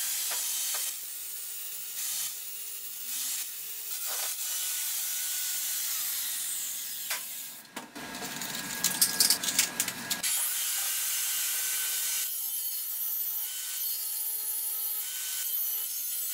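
Angle grinder running, its disc grinding down the TIG-welded aluminium in the slots of a motorcycle clutch basket, with a steady motor whine. The grinding breaks off about eight seconds in and starts again a couple of seconds later.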